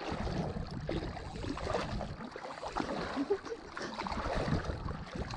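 Shallow sea water sloshing and lapping around a wading angler, with wind buffeting the microphone as a steady low rumble.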